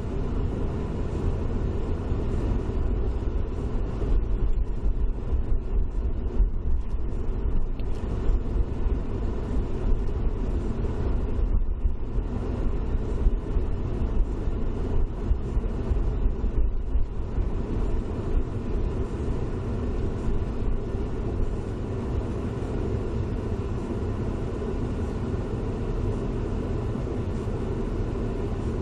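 A car driving on a wet road in the rain, heard from inside the car: a steady low rumble of tyres and engine with rain hiss.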